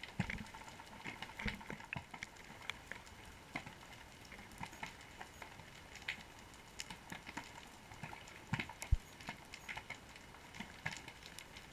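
Underwater ambience recorded through a GoPro's waterproof housing: a steady faint hiss with irregular scattered clicks and pops, a few a second, and a few louder knocks.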